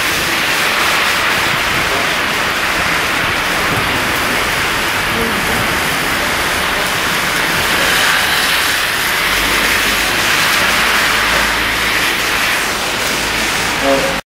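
Heavy rain pouring onto a flooded road and pavement: a loud, steady hiss of downpour and splashing. From about halfway through, a low rumble of cars driving slowly along the wet road joins it, and the sound cuts off abruptly near the end.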